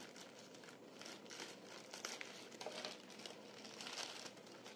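Faint crinkling and rustling of a plastic courier mailer bag as it is cut open with scissors and pulled apart by hand.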